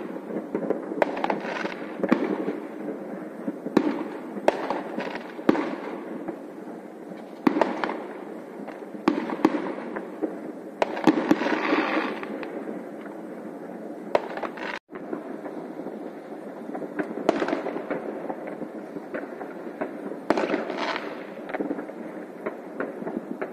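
Many New Year's fireworks going off across a city at once: a constant crackle and rumble of distant bursts, with sharper bangs standing out every second or so.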